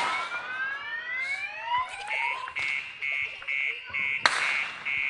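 An electronic siren cycling through its tones: repeated rising whoops, then about two seconds in a rapid pulsed beeping at about two beeps a second. Two sharp cracks cut in, one at the start and one about four seconds in.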